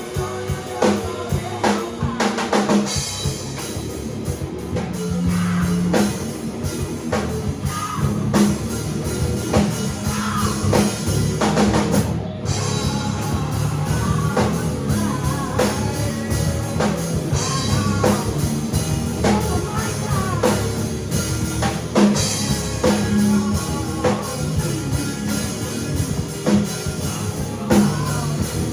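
Live rock band playing a song: a drum kit with kick and snare under sustained low bass notes and electric guitar.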